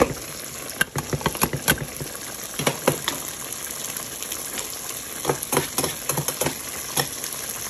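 Pot of potatoes and green peas at a rolling boil, water bubbling with a steady hiss and scattered irregular pops and crackles.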